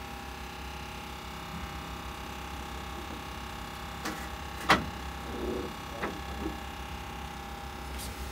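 Steady mechanical hum of a small motor, with a few sharp knocks, the loudest a little past halfway.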